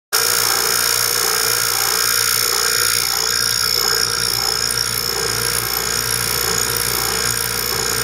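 Electric vacuum pump running steadily, a low hum with a high whine over it, drawing the air out of a bell jar so that the water inside boils at room temperature.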